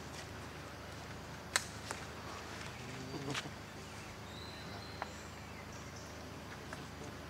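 Outdoor background noise with a few sharp clicks or taps, the loudest about a second and a half in, and a brief high thin chirp near the middle.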